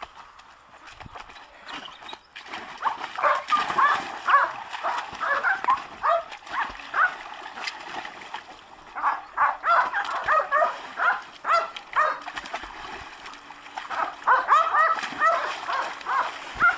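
Belgian Malinois yelping and barking in rapid short calls, coming in three bouts, while splashing about in a paddling pool.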